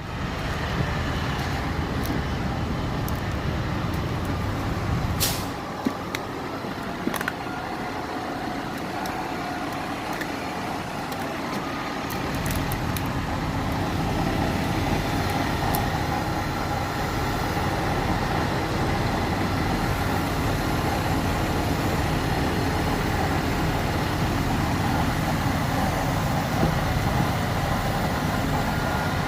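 A heavy engine running steadily, its low rumble easing off for several seconds about a quarter of the way in and then returning, with a sharp clank about five seconds in.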